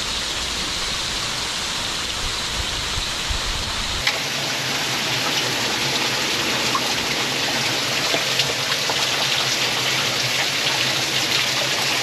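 Meltwater dripping and trickling off a thawing frozen waterfall, a steady rain-like patter. About four seconds in the sound changes abruptly: a low rumble drops out and the drips become closer and sharper, many small ticks.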